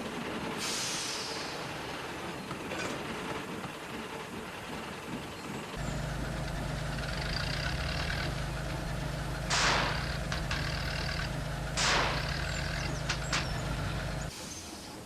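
A vehicle engine running steadily for about eight seconds, then cutting off abruptly near the end. Over it come two sharp hisses of released air, about two seconds apart, and a few light clicks. A short hiss is heard near the start.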